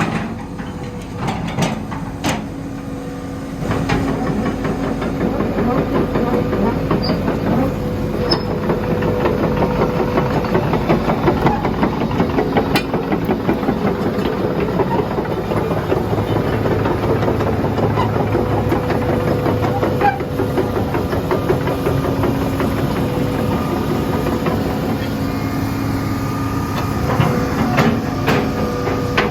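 Hitachi EX200-2 excavator's Isuzu 6BD1 six-cylinder diesel running steadily, with scattered clicks and knocks. It gets louder about 3.5 s in, as if throttled up or put to work.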